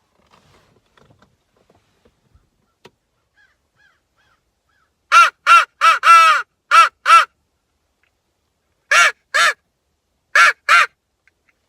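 Hammerin' mouth-blown crow call blown in caws: a run of six, then two pairs, each caw short and harsh.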